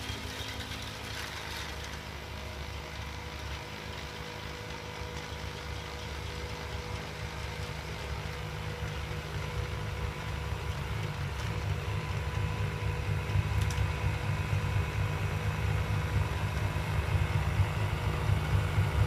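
Bobcat Toolcat's diesel engine running steadily while its front-mounted snowblower throws snow, the sound growing steadily louder as the machine approaches.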